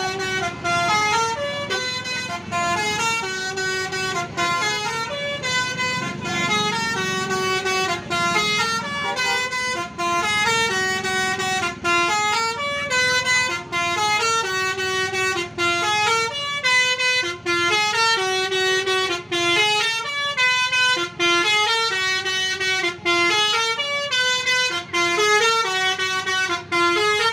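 Tour bus's basuri musical horn playing a long telolet melody, one note after another with brief breaks between phrases, over a low rumble underneath.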